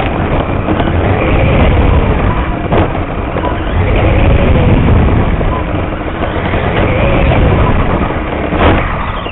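Onboard sound from a radio-controlled oval race car at speed: heavy rumble of wind and track noise on the car-mounted camera, with a fainter motor whine that rises and falls as the car runs through the turns.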